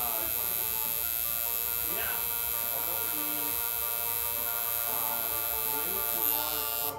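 Electric tattoo machine buzzing steadily as the needle works into skin, a constant even hum.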